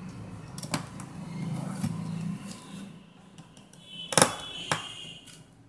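Scattered clicks and taps of small phone parts and tools being handled during smartphone reassembly, with a sharp click about four seconds in that rings briefly, then a lighter one.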